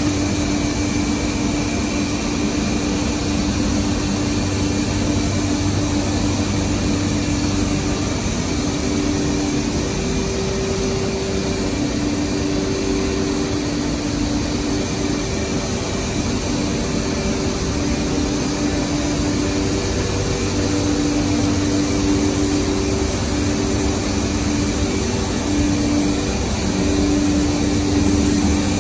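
Woodtron CNC router plant with its vacuum pumps running: a steady machine hum, with a low pitched tone that fades in and out.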